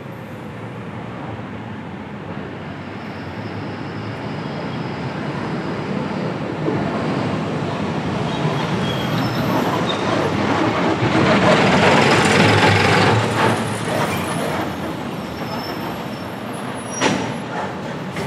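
A vehicle drives past on a city street: its noise builds slowly, peaks about twelve seconds in and fades away. A single sharp knock follows near the end.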